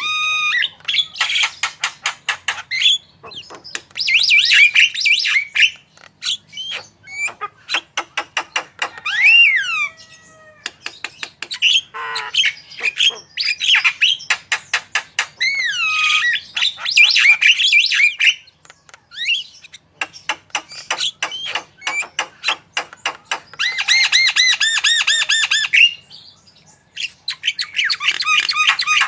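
Javan myna singing vigorously with mimicked songs learned from other birds: a varied stream of rapid rattling clicks, whistled glides and harsh squawks in bursts of a few seconds, broken by short pauses.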